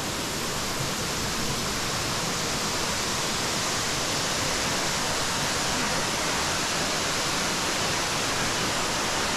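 Steady rushing of the twin waterfalls of Florence Falls pouring into the plunge pool, an even roar of falling water.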